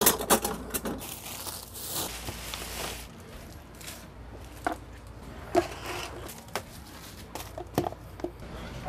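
Food-prep handling noises: rustling and crinkling for about the first three seconds, then scattered knocks and clicks as a refrigerator and containers are handled.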